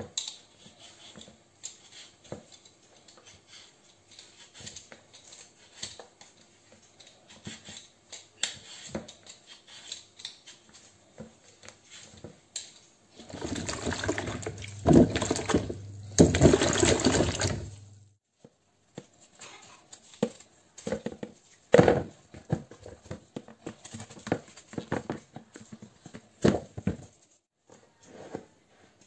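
Water sloshing and splashing in a bowl as potatoes are rubbed and rinsed by hand, in short scattered splashes. About halfway through there is a louder rush of water lasting several seconds, then more splashes.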